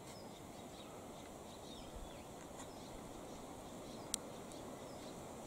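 Faint outdoor bush ambience: a soft steady background hiss with a few faint, distant bird chirps, and one sharp click a little after four seconds in.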